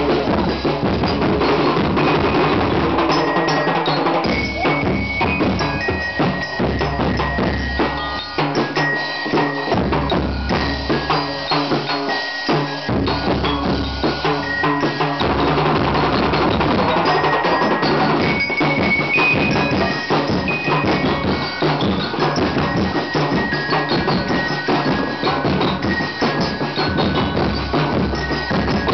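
A drum-and-lyre street band playing: metal-bar bell lyres ring out short high notes of a tune over steady bass drum, snare drum and cymbal strokes.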